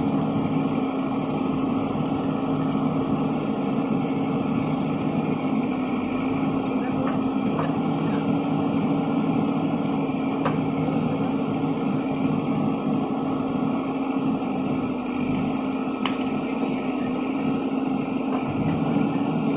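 JCB backhoe loader's diesel engine running at steady revs, with a constant drone and a few faint clicks from the working machine.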